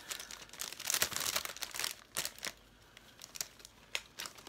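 Cellophane gift wrap crinkling and crackling as it is handled and tied at the gathered top, with irregular crackles for the first two seconds or so, a quieter stretch, then a few more crackles near the end.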